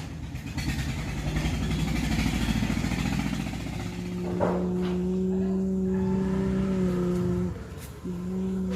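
Excavator's diesel engine revving up, then running at a steady high pitch while it works. It dips briefly near the end and picks straight back up.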